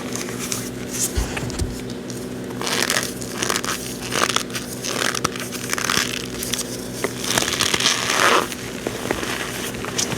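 Reformed cornstarch being squeezed and crushed by hand: squeaky crunching in irregular bursts, the loudest about eight seconds in. A steady low hum runs underneath.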